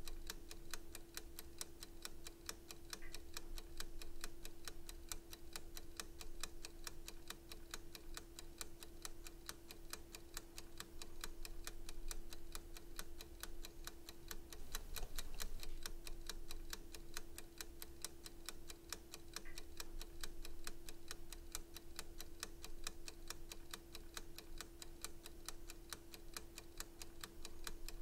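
Clock ticking sound effect, a steady even tick about twice a second.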